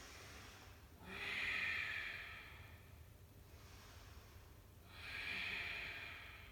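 A person breathing slowly and audibly through the nose while holding a deep yoga pose: two long breaths, one about a second in and one about five seconds in.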